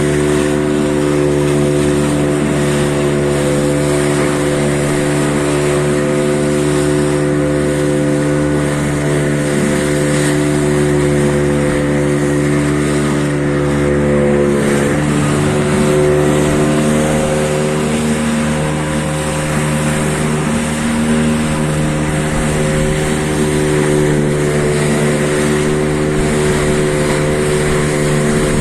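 Engine running steadily at constant speed, with a slight shift in pitch about halfway through.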